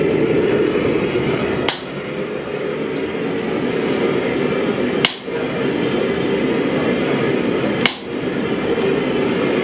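Hammer blows on steel in a blacksmith's forge: three sharp strikes a few seconds apart over a steady, loud roar.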